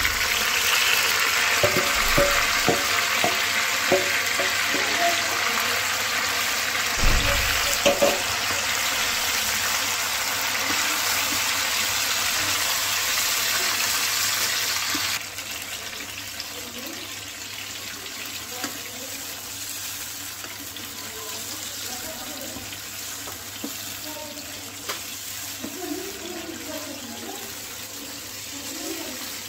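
Chicken pieces and freshly added grated tomato sizzling hard in hot oil in a wok, with a few knocks of a wooden spatula against the pan while stirring. About halfway through the sizzle drops suddenly to a quieter bubbling as the tomato sauce simmers.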